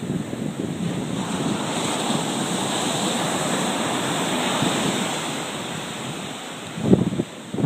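Blizzard wind buffeting the microphone over a steady rush of sea surf, swelling and easing, with a harder gust of buffeting near the end.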